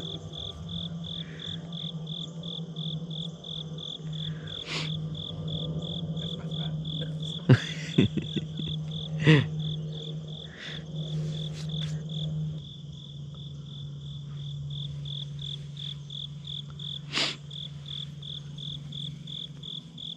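Insects chirping in a steady, even pulse, about three high chirps a second, with a few sharp knocks or cracks over it, the loudest about seven and a half seconds in.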